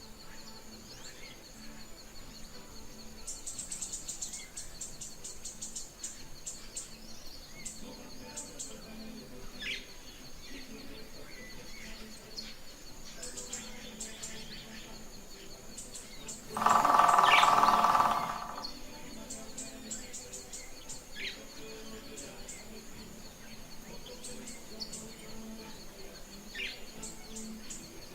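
Songbirds chirping and trilling in quick high runs over a steady high-pitched pulsing tone. A much louder harsh call of about two seconds comes about two-thirds of the way through.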